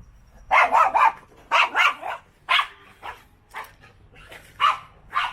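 A dog barking repeatedly, a run of short sharp barks, some coming in quick groups.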